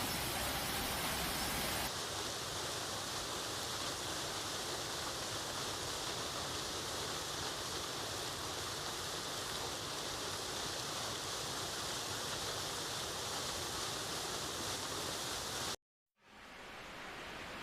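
Flowing water, a stream or small waterfall, rushing steadily. The sound changes character about two seconds in, cuts out completely for a moment near the end, and returns quieter.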